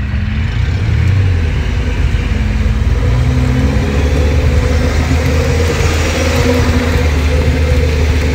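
Off-road vehicle's engine running under load as it crawls over a muddy, rutted dirt track, heard from inside the cab; a steady low drone whose pitch rises a little a few seconds in.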